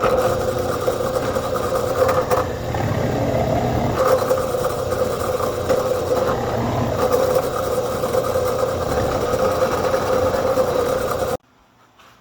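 Table saw running steadily, with an abrupt start and an abrupt cut-off near the end.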